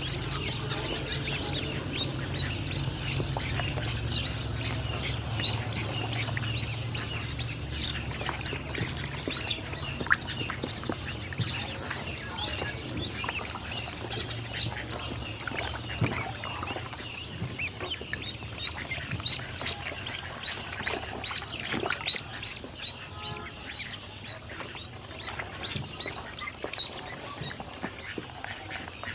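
A group of ducklings peeping continuously in short, high chirps, with small water splashes and clicks as they dabble and paddle in a shallow tub.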